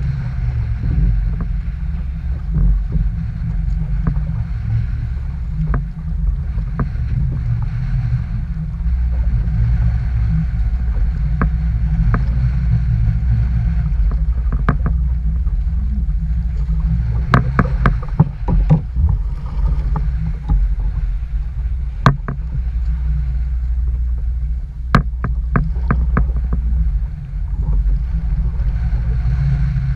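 Strong wind buffeting the microphone as a steady low rumble, with scattered sharp clicks and taps, a cluster of them a little past the middle.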